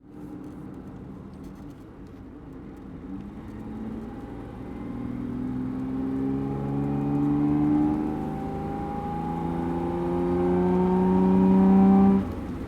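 BMW car engine accelerating through the gears: its pitch climbs steadily, drops at an upshift about eight seconds in, then climbs louder again until another shift near the end.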